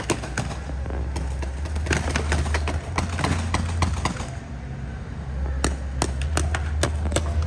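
Paintball markers firing: many sharp pops in quick, irregular succession, thinning out for about a second past the middle before picking up again, over a steady low hum.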